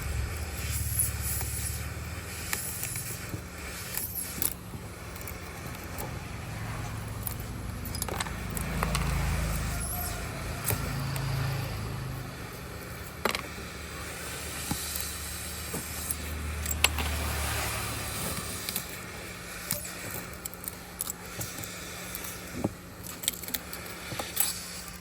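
Scattered small clicks, taps and scrapes of hand tools working on a phone, over a steady low hum.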